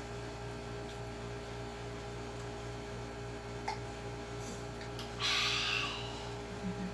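Steady electrical hum in a small room, with a few faint clicks. About five seconds in there is a short burst of hissing noise, the loudest sound here.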